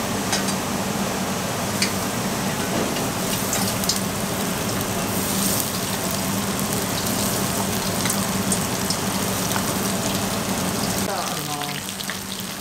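Battered vegetables frying in a shallow pan of hot oil: a steady crackling sizzle with sharp pops, over a steady low hum.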